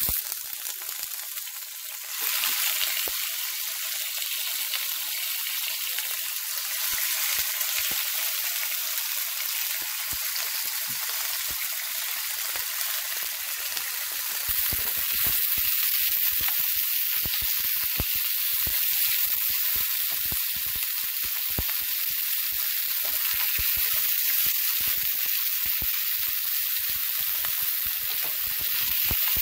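Cubes of boneless pork sizzling and crackling in hot oil with fried garlic in a frying pan. The sizzle grows louder about two seconds in and again about halfway through as more meat goes into the pan.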